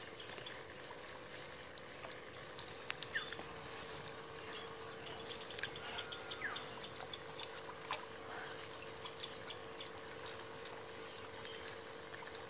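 Water trickling and dripping from a wet fine-mesh net lifted out of a fish tank, with small splashes and drips as the net is gathered and a hand net is worked through it. A steady faint hum runs underneath.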